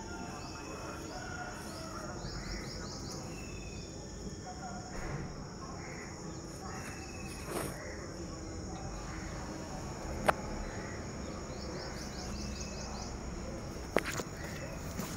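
Outdoor ambience of insects trilling steadily at a high pitch, with scattered short chirps and faint bird calls. Two sharp clicks stand out, about ten seconds in and again near the end.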